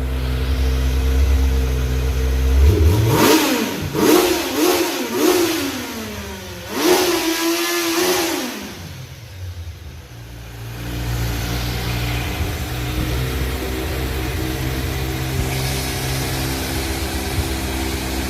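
Kawasaki Z900's inline-four engine idling, then blipped through the throttle: four quick revs that rise and fall, then a longer rev held briefly about seven seconds in. It drops back and settles into a steady idle again for the second half.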